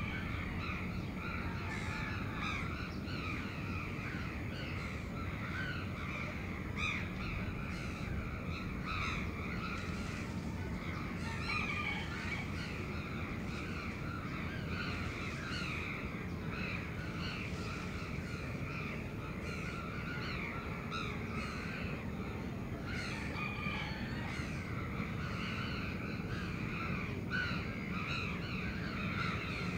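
Many crows cawing, their calls overlapping constantly, over a steady low hum of the city.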